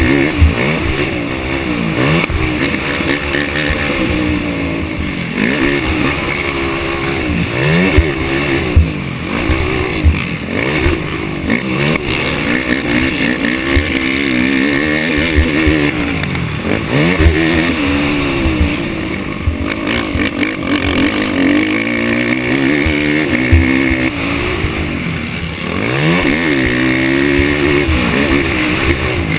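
Racing ATV engine revving up and falling back over and over as it accelerates, shifts and backs off around the track, its pitch climbing and dropping every two to three seconds, with low thumps and knocks mixed in.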